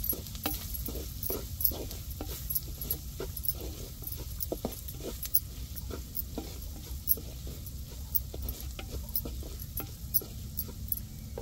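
Wooden spatula stirring and scraping shallots and spices in a black cooking pan, a run of irregular scrapes and clicks over a steady low rumble.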